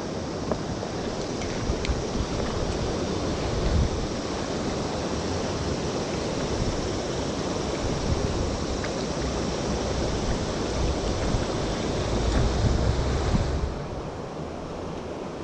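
Steady rushing of a river's current, with wind buffeting the microphone in uneven low rumbles. The rush eases about two seconds before the end.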